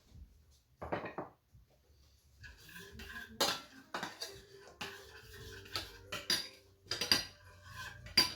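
A utensil knocking, clinking and scraping against a dish while the sauce is stirred: one knock about a second in, then a run of sharp, briefly ringing clinks, the loudest near the end.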